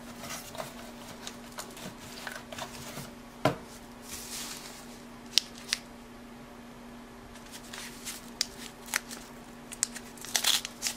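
Trading cards and a waxed-paper card pack being handled by hand: light rustles and taps as cards are set down and a sealed 1981 Topps football wax pack is picked up, with a quick crinkling of the wax wrapper being peeled open near the end. A few sharp clicks and a knock stand out, over a low steady hum.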